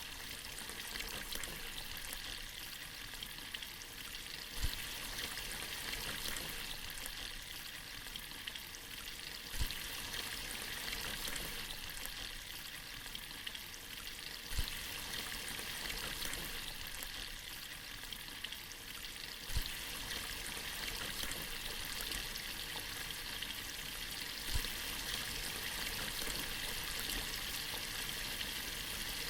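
Stream water running steadily with a hissing rush. A dull low bump comes about every five seconds.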